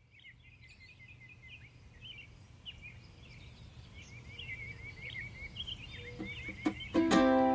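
Small birds chirping and trilling over a low outdoor rumble, fading in. Near the end, plucked-string music comes in.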